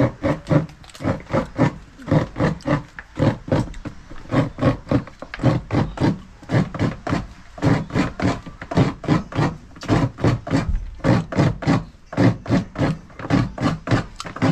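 Coconut being scraped by hand on a serrated scraper, an even run of grating strokes about three a second.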